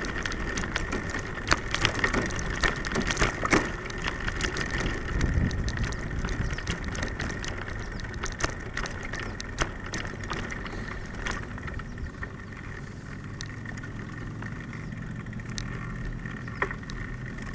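Bicycle rolling over a wooden plank boardwalk, its tyres and frame knocking and rattling on the boards over a steady rolling noise. The knocks thin out in the last few seconds as it rolls onto smooth pavement.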